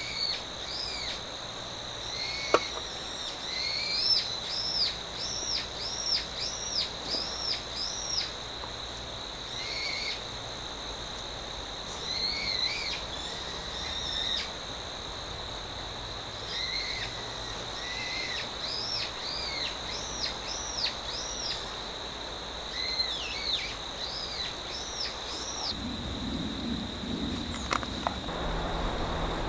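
A bird calling in runs of short, arching high notes, about two a second, over a steady high insect trill. A single sharp click comes about two and a half seconds in.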